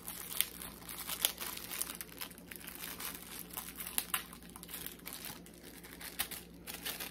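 Candy wrapper crinkling and tearing in the hands as a spicy chocolate-covered cherry is unwrapped, a steady run of quick irregular crackles.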